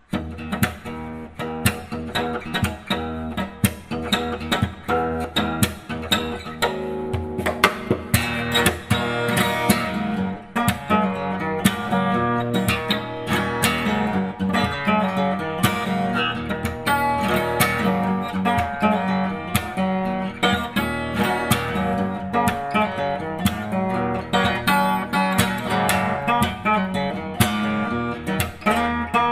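Background music: acoustic guitar picked and strummed, with plucked notes coming thick and fast throughout.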